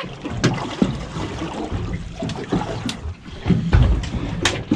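Water lapping and splashing against the hull of a small fishing boat, with scattered sharp knocks and clicks from fishing gear being handled.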